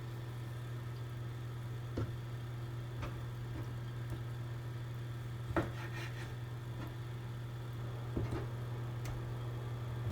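A steady low hum with a few light clicks and knocks scattered through it, typical of kitchen handling noise while cooking.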